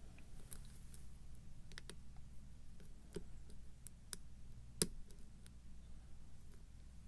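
Lock pick working the pins of a pin-tumbler challenge lock: scattered small metallic clicks at irregular intervals, the loudest a little under five seconds in, over a faint steady low hum.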